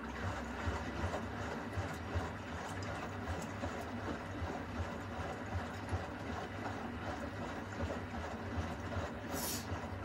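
Beko front-loading washing machine tumbling its load: water sloshing and splashing in the turning drum over a low, uneven rumble. A brief hiss near the end.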